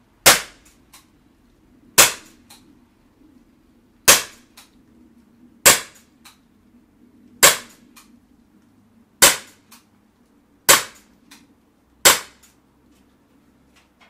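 Blowback CO2 air pistol firing steel BBs: eight sharp cracks at a steady pace of about one every one and a half to two seconds, each followed by a fainter click.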